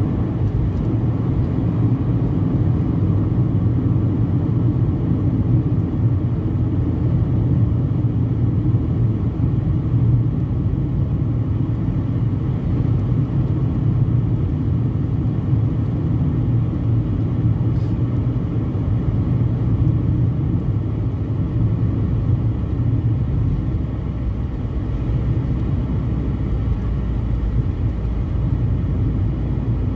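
Steady low rumble of a car driving, heard from inside the cabin: engine and tyre-on-road noise at an even level.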